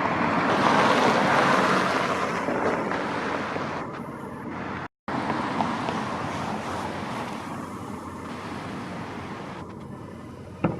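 Road traffic noise with wind on the microphone: a vehicle passing swells and fades over the first few seconds, then steady road noise. The sound cuts out for a moment about five seconds in, and there is a single sharp pop near the end.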